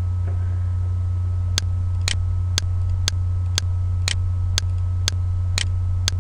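Steady low electrical hum on the recording. From about one and a half seconds in, sharp ticks come evenly about twice a second.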